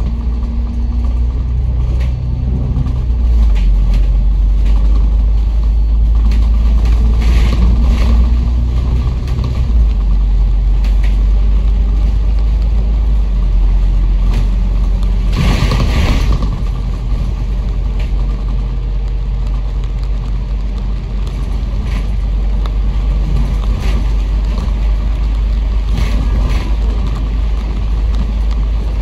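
A Kowloon Motor Bus service bus under way, heard from inside the cabin: a steady low rumble of engine and road noise, with the engine note shifting during the first ten seconds. About fifteen seconds in there is one brief rushing burst of noise.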